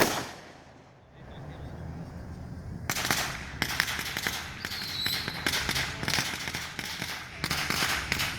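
Fireworks: one sharp bang that echoes away over about a second, then from about three seconds in a dense, rapid crackling of many small pops, like a string of firecrackers or crackling shells, with a short high whistle about five seconds in.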